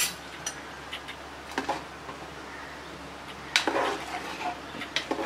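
A metal ladle stirring thick curry in a metal cooking pot, knocking and scraping against the pot's side in a handful of separate clinks. The loudest clink comes about three and a half seconds in.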